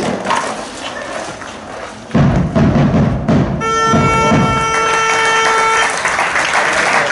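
Loud music laid over the picture. Heavy drum hits begin about two seconds in, then a single held chord sounds and stops suddenly about six seconds in, followed by a noisy wash of sound.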